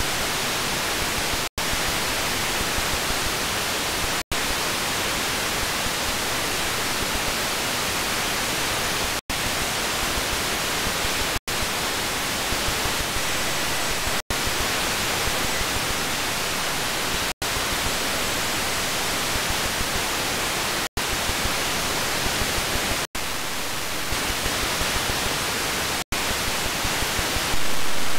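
Steady hiss of static from an Airspy HF+ receiver demodulating wideband FM on empty channels between about 67 and 74 MHz, with no station present. The hiss is broken by about nine very short drop-outs as the receiver is retuned step by step, and it is briefly louder near the end.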